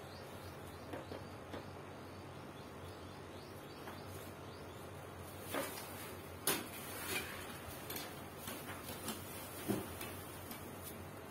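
Parts of a standing fan being handled and fitted during assembly: scattered knocks, clicks and rattles of plastic and metal, the loudest a little past halfway, over a steady low background hum.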